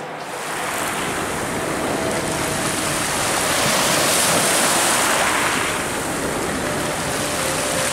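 Thames river water washing in small waves over the stony foreshore, a steady rush that swells louder about four seconds in and again near the end.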